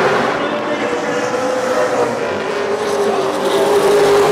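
Late model stock car race engines running on an oval track: a steady, loud drone from the field with its pitch wavering slightly.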